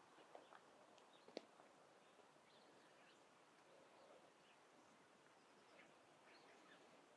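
Faint birdsong: scattered short chirps from birds in the dawn chorus over a soft, quiet background hiss, with a sharp tap about a second and a half in.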